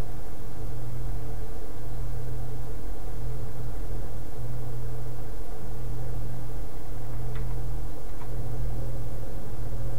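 Steady low hum with background hiss, unchanging throughout, with two faint ticks a little before the end.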